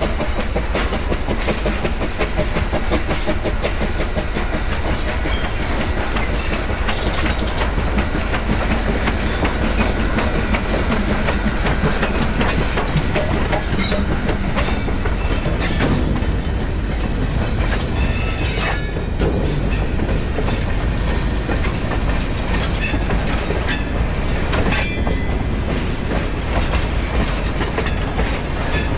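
Steam-hauled freight train of box cars rolling past on jointed track, steel wheels clicking over the rail joints. A thin high squeal runs through the first half, and the clicks grow sharper through the second half.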